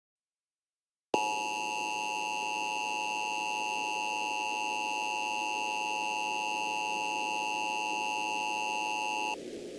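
Emergency Alert System attention signal: a steady two-tone alarm (853 and 960 Hz played together) that starts abruptly about a second in, holds for about eight seconds and cuts off suddenly, leaving faint hiss. It signals that a broadcast emergency message follows.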